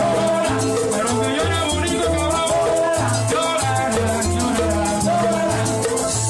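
Cuban son band playing in a salsa rhythm: maracas shaking a steady, even pattern over a syncopated bass line and a melody.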